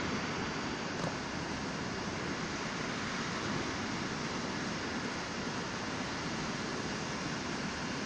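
Steady, even rushing noise with no distinct events and no pitched tone.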